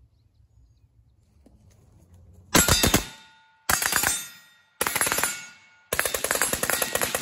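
Suppressed 7.5-inch 5.56 piston AR-15 short-barrelled rifle with a SilencerCo Saker K, fired fast through a Franklin Armory binary trigger. Starting about two and a half seconds in, there are three short rapid bursts about a second apart, then a longer string near the end, with steel targets ringing between the shots.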